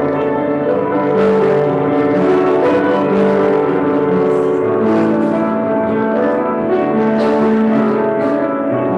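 Slow instrumental music of held, overlapping notes, with no singing.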